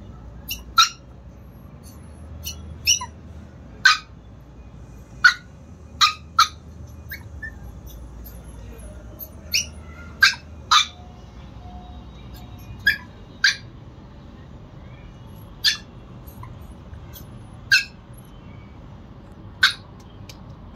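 Chihuahua puppy yapping: short, sharp, high-pitched yaps, some single and some in quick pairs, at irregular intervals, over a low steady hum.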